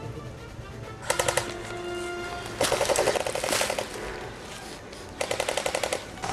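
Three bursts of full-auto airsoft gunfire, a rapid even rattle of shots: a short one about a second in, a longer one near the middle, and another near the end.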